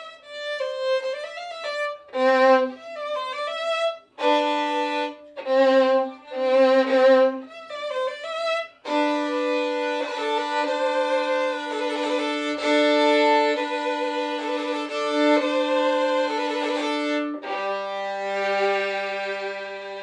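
Solo violin being bowed in practice: short phrases with brief breaks at first, then from about halfway a long passage of sustained notes with two strings sounding together, ending on a long held low note.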